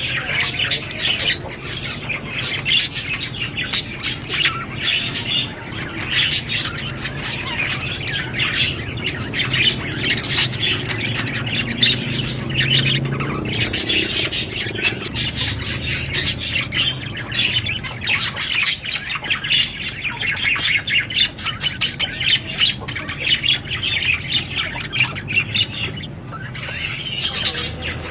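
Budgerigar chirping and chattering, a continuous stream of rapid, short chirps and squawks.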